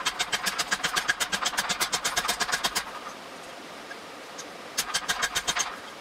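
Hand hammer striking metal on the horn of an anvil in a fast run of light, even blows for nearly three seconds. After a short pause, another quick run of blows comes near the end.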